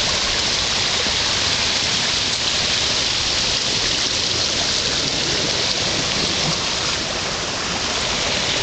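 Steady, even hiss of rushing water from muddy storm runoff streaming along the roadside after a short spell of hard rain.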